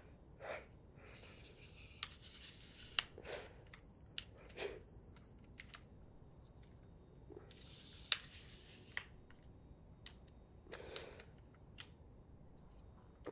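Scattered small clicks and taps, with two stretches of soft rustling, one about a second in and another past the middle.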